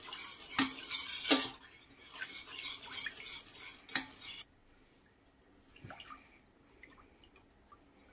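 Metal spoon stirring and scraping thick yogurt and milk in a stainless steel saucepan, with sharp clinks of the spoon against the pan, as yogurt starter is worked into the milk. The scraping stops about halfway through, leaving only faint soft sounds.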